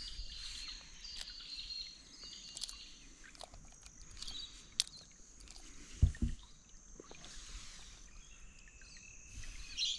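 Birds chirping over a steady high insect drone, with a few small clicks and a single low thump about six seconds in.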